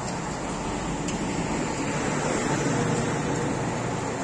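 A steady motor drone with a low hum, growing a little louder in the middle and easing off again.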